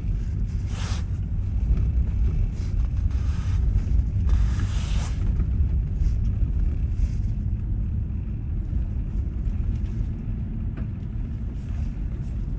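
Steady low rumble of a moving vehicle's road and engine noise, with two brief swells of hiss, about a second in and again around four to five seconds in.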